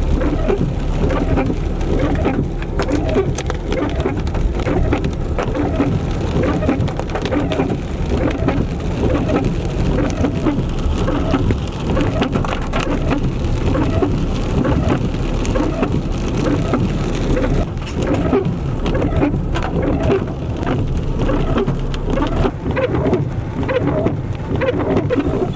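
Heavy rainstorm: rain pouring down steadily, with a constant low rumble under it.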